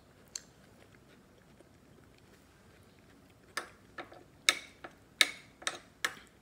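Metal spoon clinking against a ceramic bowl while stirring and scooping food. There is one clink just after the start, then a run of about eight sharp clinks in the last three seconds.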